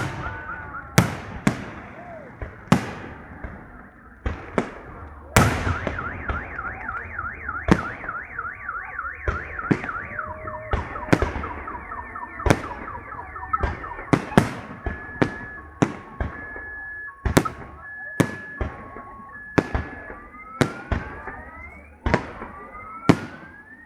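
Fireworks bursts bang over and over, with a car alarm going off about five seconds in: first a fast warbling wail, then alternating beeps, then rising whoops near the end.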